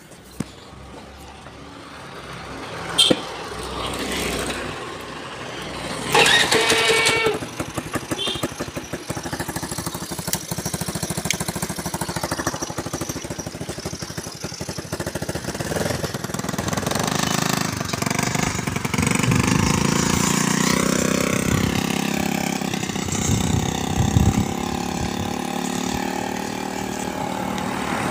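Honda Activa scooter engine, its rear end built into a small pickup cart, starting and running, rising and falling in pitch as the cart pulls away. There is a sharp click about three seconds in.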